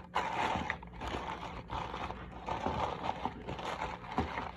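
Paper coffee filter rustling and crinkling as hands open it out and press it into a drip coffee maker's filter basket, with one sharper knock near the end.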